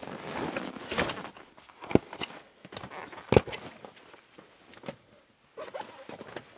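Rolled canvas swag being handled and unstrapped: rustling canvas and webbing straps, with two sharp knocks about two seconds in and again a second and a half later.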